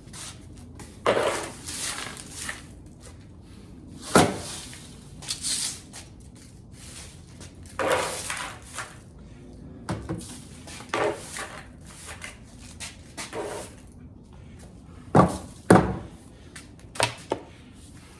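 Scattered knocks, clatters and rustles of objects being handled, about a dozen separate noises, the loudest a pair of sharp knocks near the end.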